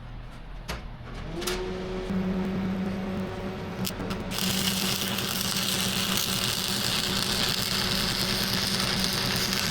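Stick (arc) welding with an old 1960s AC arc welder: a steady transformer hum starts about a second in. A couple of sharp scratches strike the electrode near four seconds, then the arc runs with a loud, steady crackling hiss.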